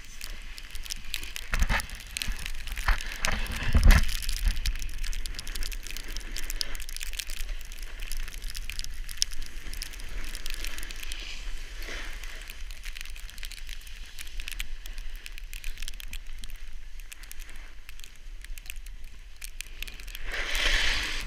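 Snowboards sliding and carving over packed snow: a steady crackling scrape with scattered clicks, and heavier thumps about two and four seconds in.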